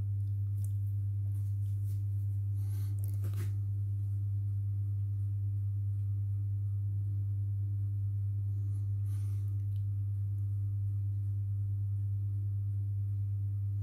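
Steady deep electrical hum from the running induction-heater rig, one unchanging low tone. Faint brief hissy noises come about three seconds in and again about nine seconds in.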